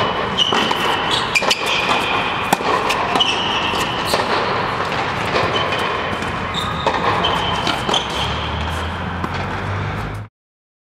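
Tennis rally on an indoor hard court: sharp racket strikes and ball bounces, with short high sneaker squeaks, over a steady rushing background. The sound cuts off abruptly about ten seconds in.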